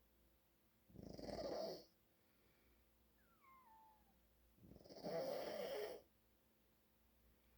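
A man snoring in his sleep: two rattling, fluttering snores about a second long each, nearly four seconds apart. Between them is a faint whistle that falls in pitch.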